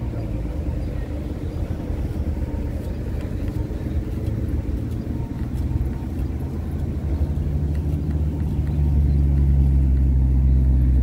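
A car engine running nearby with a low, steady note that grows louder about eight seconds in.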